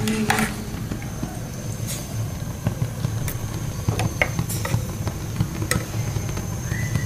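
A small spoon clinking lightly against a cup several times, scattered unevenly, over a low steady background rumble.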